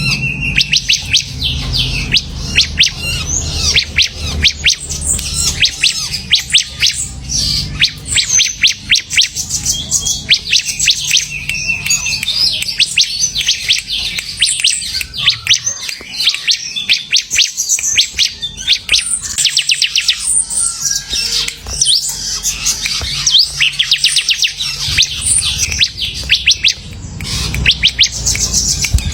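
A ciblek (bar-winged prinia) singing actively in a long run of rapid, high-pitched chirps and trills, over a low background hum.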